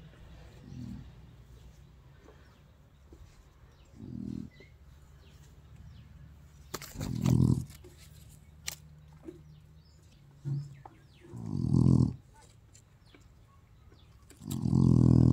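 Rottweiler growling in low bursts every few seconds, the later growls much louder, with faint ticks between.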